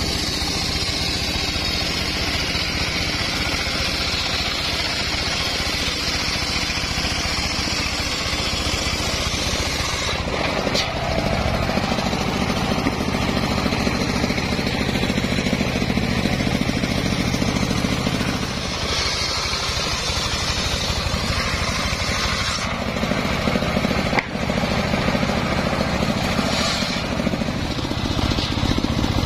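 Homemade bench-mounted circular saw with a large blade running and cutting lengthwise through logs. A steady low machine note runs under a high whine from the blade in the wood, and the sound changes abruptly several times.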